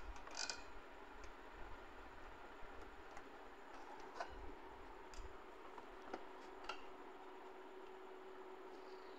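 Faint, scattered clicks and taps of hands and a screwdriver on the plastic parts of an ink-tank printer while its tank nuts are fitted, about one every second, stopping near the end, over a faint steady hum.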